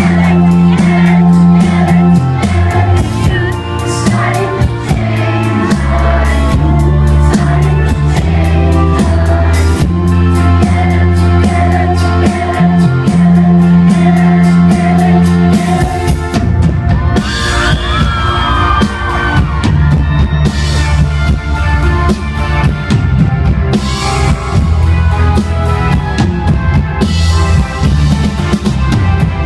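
A rock band playing live, loud, with a drum kit and sustained bass notes. About halfway through, the bass line changes and the drums and cymbals come to the fore.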